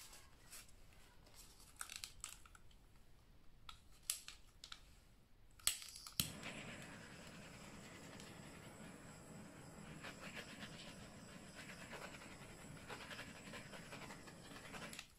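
A small handheld heat tool is switched on after a few clicks about six seconds in and runs with a steady rushing hiss while it is played over wet acrylic paint, then cuts off near the end.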